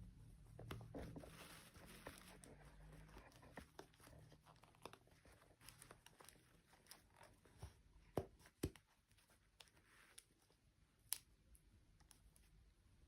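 Faint handling noise: soft rustling and crinkling, like plastic packaging being handled, with a few sharp clicks and taps, the loudest about eight and eleven seconds in.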